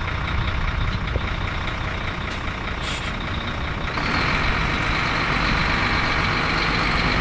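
2006 DAF LF75.360 dump truck's diesel engine running at idle, with a short hiss of air about three seconds in. About a second later the engine note rises and gets louder as the truck pulls away and keeps driving slowly.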